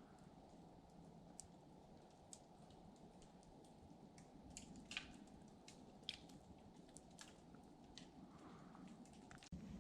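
Near silence, with faint irregular clicks and ticks scattered throughout.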